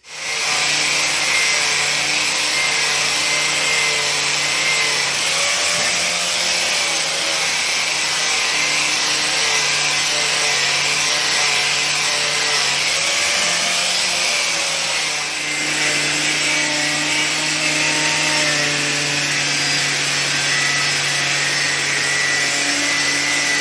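Corded angle grinder with a strip disc running continuously, scrubbing the old finish off an aluminum wheel's rim down to bare metal. The motor hum wavers slightly in pitch under load, and the sound dips briefly about fifteen seconds in.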